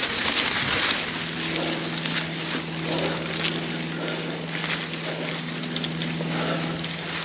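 Mountain bike riding over a dirt trail: wind and tyre noise with frequent small knocks from bumps. From about a second in, a steady buzz from the rear hub's freewheel as the rider coasts.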